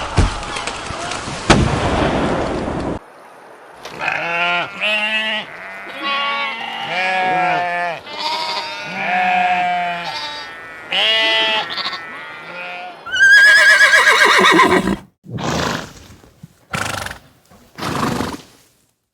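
About three seconds of harsh noise, then a run of drawn-out animal calls, each under a second and bending in pitch. Near the end comes a loud, wavering cry that falls in pitch, followed by several short calls.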